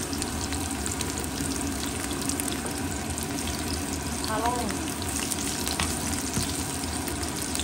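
Garlic cloves and sliced onion sizzling and crackling steadily in hot oil in a nonstick frying pan, with a spatula stirring them through in the second half.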